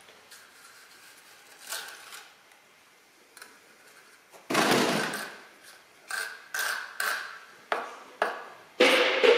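Steel trowel scraping wet concrete mortar across a roof-tile mould: one loud stroke about halfway through, then about six shorter strokes, each starting sharply and fading.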